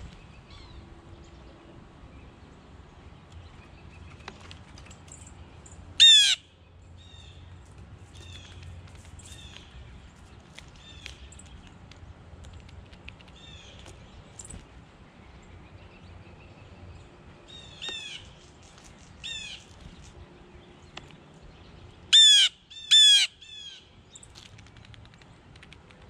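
Wild birds calling: one bird gives loud harsh calls, each a quick run of falling notes, about six seconds in and twice more near the end, with weaker ones a little before. Fainter chirps from other birds come in between.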